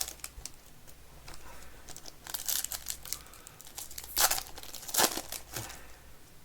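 Plastic wrapping of a trading-card mega box and its packs crinkling and tearing as they are opened by hand, in irregular rustles with a few sharper rips about two and a half, four and five seconds in.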